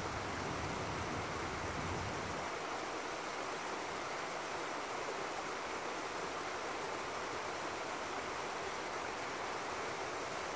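Small woodland stream spilling over a rocky cascade: a steady rush of water, with a low rumble underneath that fades out about two seconds in.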